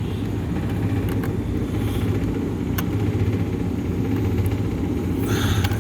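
Carrier rooftop HVAC unit with Humidi-MiZer running, a steady low hum, with a faint click near the middle.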